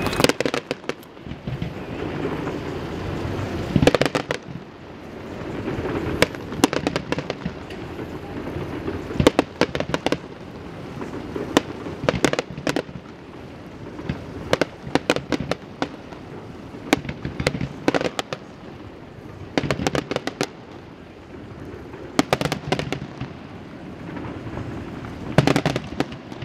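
Aerial firework shells bursting one after another: sharp bangs and clusters of rapid crackling cracks every couple of seconds, with a continuous low rumble between them.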